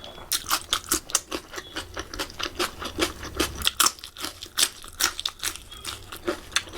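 Close-miked chewing of food, with many irregular wet clicks and crunches from the mouth.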